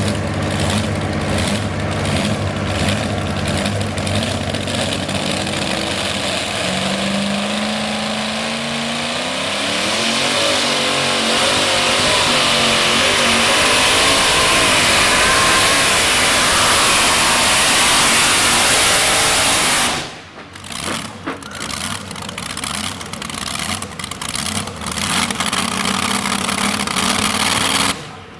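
Supercharged engine of a modified two-wheel-drive pulling truck running low at first, then revving up with a rising pitch and running at full throttle as it drags the pulling sled. About twenty seconds in the throttle cuts suddenly at the end of the pull, and the engine drops to a quieter, uneven idle.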